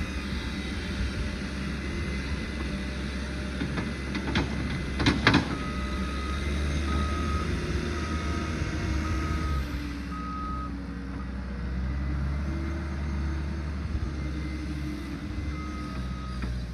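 Caterpillar skid steer's diesel engine running steadily, its reversing alarm beeping in a regular series for several seconds from about five seconds in and again near the end. A few sharp knocks sound about four to five seconds in.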